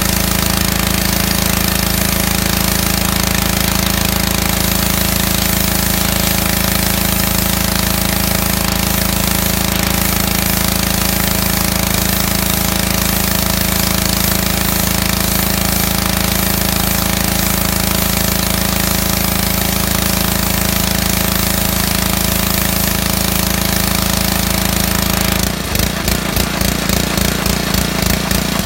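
Small gasoline engine driving a pressure washer pump, running steadily at high speed. About 25 seconds in the sound changes abruptly to a pulsing, uneven beat as the engine's load or speed shifts.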